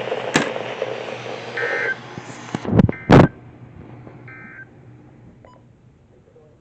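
NOAA Weather Radio end-of-message (EAS/SAME) data bursts: short, buzzy two-tone electronic warbles repeated about every second and a half, signalling the end of a severe thunderstorm warning. Two loud sharp knocks come about three seconds in, and a background hiss drops away about two seconds in.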